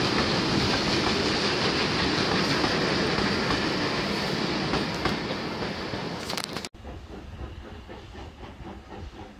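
Vintage railway carriages rolling past close by, their wheels clattering over the rail joints, fading as the train runs away. About seven seconds in, the sound cuts off abruptly into a much quieter stretch with a faint regular beat.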